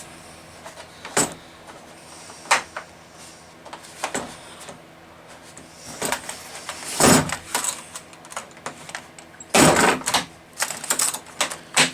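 Handling noises: a few separate sharp clicks and knocks, then louder bursts of plastic clatter and rustling from a cordless circular saw and its accessories being moved about and set down.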